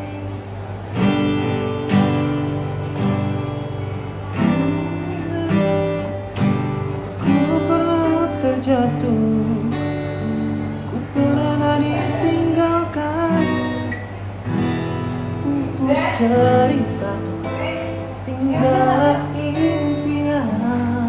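Acoustic guitar strumming a steady song, with a voice singing a melody over it for much of the time.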